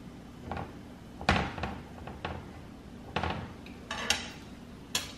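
A metal fork clinking and scraping against a skillet as it turns chicken pieces in cream sauce: a series of sharp, irregular clinks, the loudest about a second in, over a faint steady hum.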